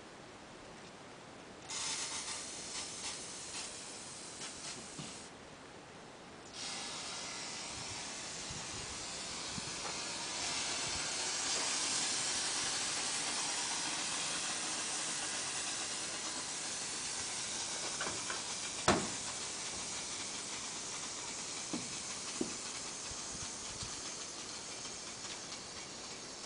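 Compressed air hissing out of the truck's air system. The hiss starts suddenly, stops for about a second, resumes and then slowly fades, with a sharp click about two-thirds of the way through.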